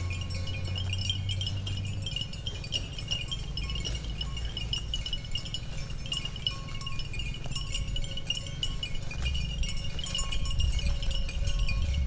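Steady high-pitched insect chorus, pulsing rapidly, over a low rumble that grows louder near the end, with a few short faint calls.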